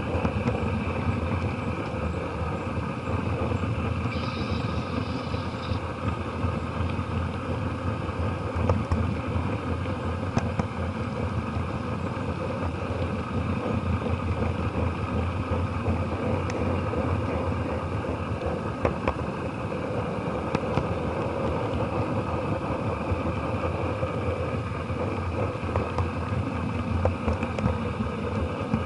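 Model train running along the track, heard from a camera riding in a car: a steady rumble of wheels and motor with occasional sharp clicks as the wheels cross rail joints and turnouts. The sound is muffled by the camera's waterproof case.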